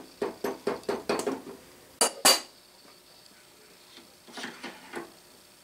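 Metal-on-metal tapping and clinking as the cast-iron end bracket of a Bridgeport mill table is worked loose and pulled off its shaft: a quick run of light taps, then two sharp louder clinks about two seconds in, then a few softer knocks.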